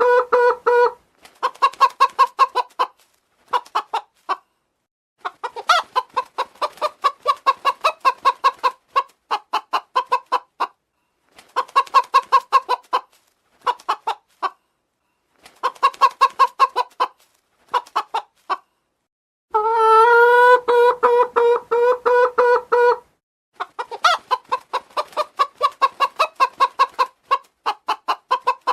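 Domestic chicken clucking in quick runs of short clucks with brief pauses between them, and one long drawn-out call about twenty seconds in.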